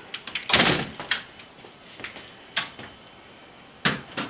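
A storm door and a house entry door being opened and shut: a loud clatter about half a second in, then separate sharp knocks and latch clicks, two of them close together near the end.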